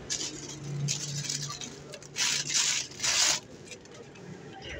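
Handling noise from a plastic toy truck being picked up and turned in the hands: rubbing and rustling in four short bursts, the loudest two close together about two to three and a half seconds in.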